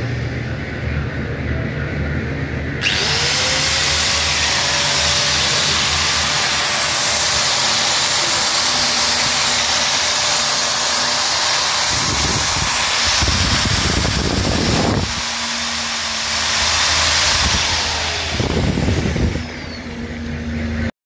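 Ideal AG801 angle grinder switched on about three seconds in, spinning up and then running at full speed with no disc fitted: a test run after repair.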